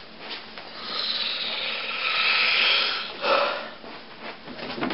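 Rustling and rubbing of cloth hand puppets being handled and propped up on a stand, a scraping sound that swells in the middle, with a brief louder scrape about three seconds in and a few light knocks near the end.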